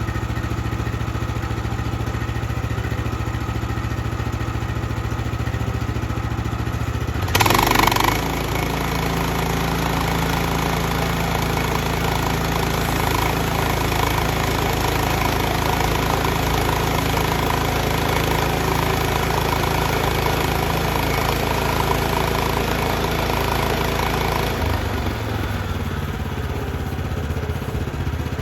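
Sawmill engine running steadily. It steps up to a higher speed about seven seconds in, after a brief louder burst, and drops back to a lower speed near the end.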